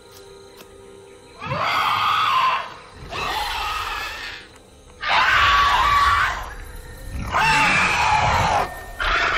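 Giant eagle-like film creature screeching: four long, shrill screeches, each a second or more, starting about a second and a half in, with a fifth cut short at the end.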